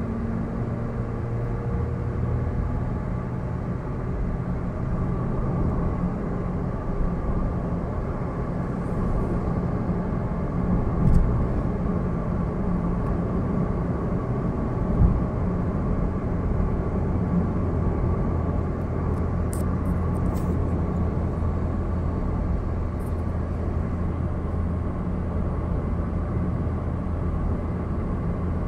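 Car being driven with steady engine hum and road noise. There are two brief thumps, about eleven and fifteen seconds in.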